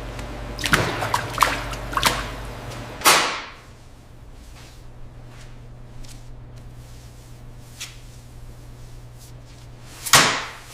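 A cluster of sharp knocks and clatters, the loudest about three seconds in with a short ringing tail, then a steady low machine hum, and another loud hit near the end.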